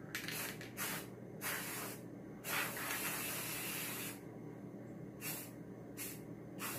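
Aerosol spray paint can hissing in a series of short spray bursts, with one longer spray of about a second and a half in the middle.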